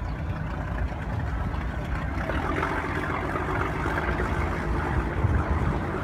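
Small motor cruiser's engine running as the boat pulls away from a pontoon, under a low, uneven rumble of wind on the microphone; the sound grows fuller about two seconds in.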